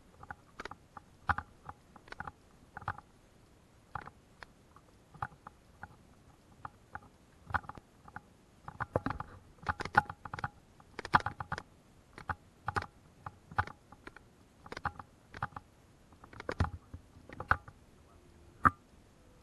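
Footsteps on a wooden plank boardwalk: irregular knocks and clicks, some in quick clusters, the loudest near the middle and a sharp single knock near the end.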